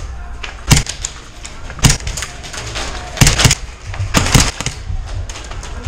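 Airsoft guns firing: single sharp cracks about a second in and again near two seconds, then two short rapid bursts around three and four seconds in, over a steady low rumble.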